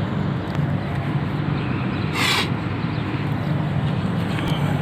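A single crow caw about two seconds in, over a steady low hum.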